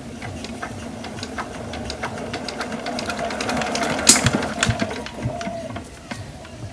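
Small irrigation water-pump engine clattering with rapid metallic clicks as it is worked by hand. The clatter builds to a loud knock about four seconds in, then eases off.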